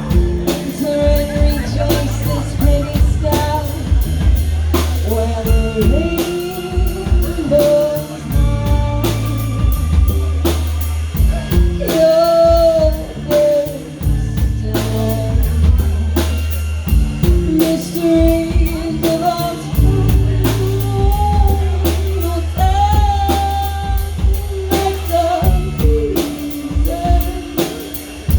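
A live band playing a song: a singer's melody over drum kit, bass and guitar, with drums keeping a steady beat.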